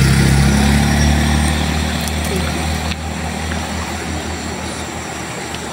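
A vehicle's low engine rumble that comes in suddenly, loudest at first, then fades over a few seconds.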